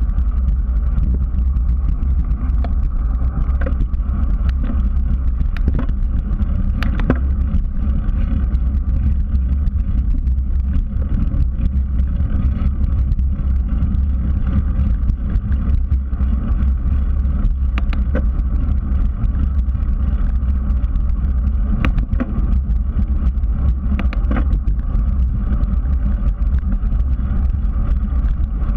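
Steady low rumble of wind on a bicycle-mounted GoPro and tyres rolling on asphalt as the bike rides along, with a few sharp ticks or rattles.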